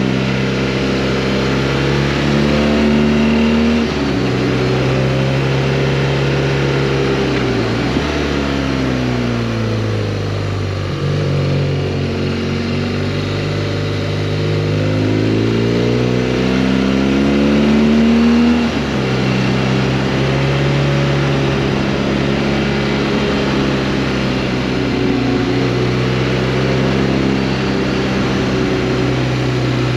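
Motorcycle engine under way, with rushing wind. Its revs climb and drop sharply at gear changes about four and eight seconds in, then fall away as it slows. The revs climb again to another shift a little past halfway, then hold steady.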